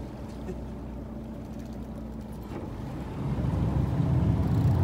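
Fishing boat's engine running steadily with a low hum, growing louder and rougher about three seconds in.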